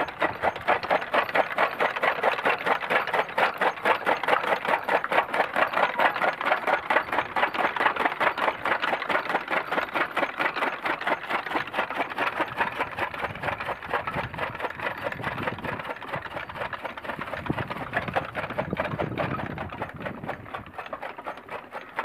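Bull-powered gear toka machine (chaff cutter) chopping green fodder: the flywheel's blades cut the stalks in a rapid, even chopping rhythm. It eases off a little near the end.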